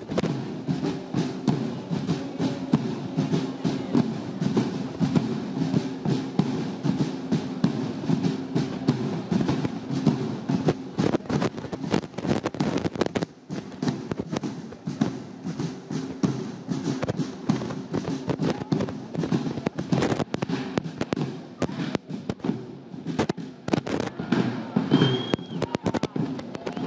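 Marching drum band playing: bass drums and side drums beaten in a rapid, continuous rhythm.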